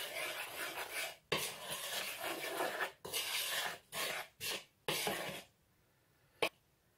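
Metal spoon stirring a dry mix of flour, sugar and ground almonds in a mixing bowl: a run of gritty scraping strokes that stops about five and a half seconds in, then a single sharp tap near the end.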